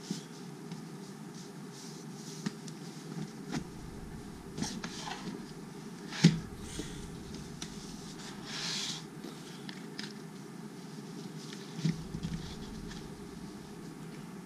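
Cardboard box being handled and set down on a wooden floor: scattered light taps and brief scrapes of cardboard as it is turned and its outer sleeve is slid, with a sharp knock about halfway through and another thump later. Steady low room noise underneath.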